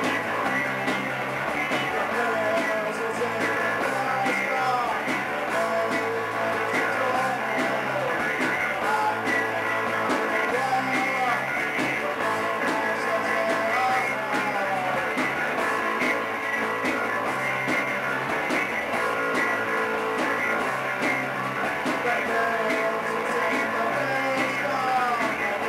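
Live rock band playing: electric guitars, electric bass and drums, with a male singer's voice on a microphone over them.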